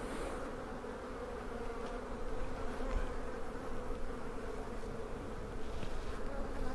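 Honeybees buzzing steadily around an opened hive, a dense, even drone.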